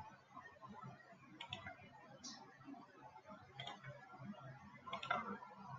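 Faint, scattered computer mouse clicks, a handful of single clicks spread a second or so apart over low room noise.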